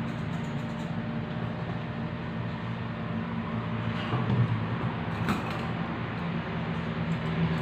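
Grooming scissors snipping a small dog's coat, a few light snips mostly in the first second and again about five seconds in, over a steady low mechanical hum.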